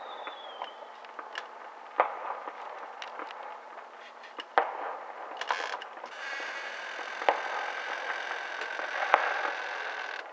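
Consumer fireworks going off: scattered sharp bangs and pops every second or two over crackling, with a steady hiss joining in about six seconds in.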